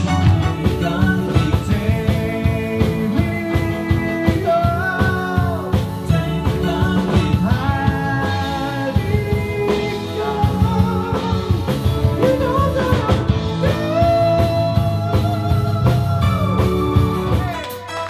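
Live rock band playing: electric guitar, bass guitar, electric keyboard and drum kit, with a melody of bending notes over a steady beat.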